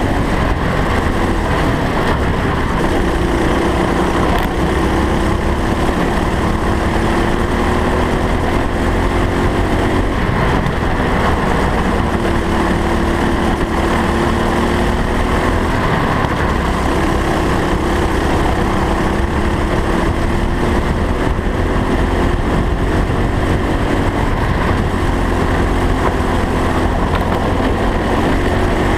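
Racing kart engine heard onboard from a low-mounted camera, its pitch climbing along each straight and dropping back for the corners several times, under heavy wind and track rumble.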